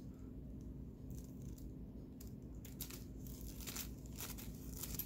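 Scissors snipping through a thin plastic grocery bag while the plastic crinkles in the hand. The cuts are faint, with a run of short snips in the second half.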